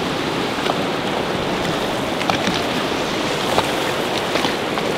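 Steady rush of river water with wind buffeting the microphone, and a few brief splashes from a hooked payara thrashing in the shallows at the shoreline.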